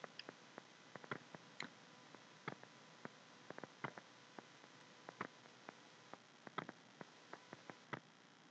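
Faint background hiss with small, sharp clicks scattered irregularly, a few each second.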